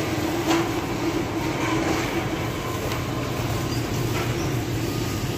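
Shopping cart wheels rolling and rattling steadily over a tiled floor, under a steady hum.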